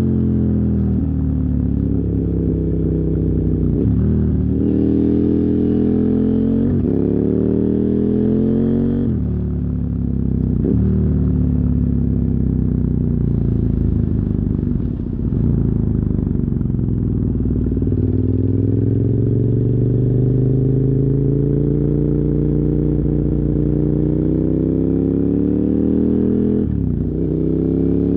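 KTM 990 Super Duke R's 999 cc V-twin through dual Yoshimura carbon exhausts, accelerating through quick upshifts in the first several seconds, each a climb in pitch cut off by a sudden drop. The revs then fall away as the bike slows, followed by a long steady climb and another shift near the end.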